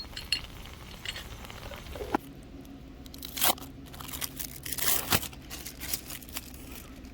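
Intermittent crinkling and crunching, like a plastic wrapper or bag being handled, in a few short bursts with sharp clicks: the loudest about three and a half seconds in and again around five seconds.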